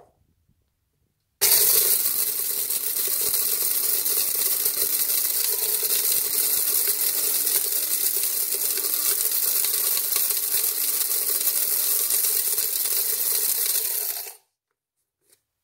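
Electric blade coffee grinder running steadily for about thirteen seconds, grinding dried rose hips, seeds and all, into powder. It starts and cuts off abruptly.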